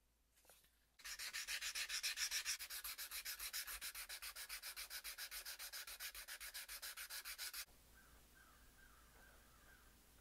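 Hand sanding a steel straight razor blade cut from an old saw blade, the sandpaper folded over the blade: fast back-and-forth scratchy strokes, about eight or nine a second. They start about a second in and stop suddenly a couple of seconds before the end.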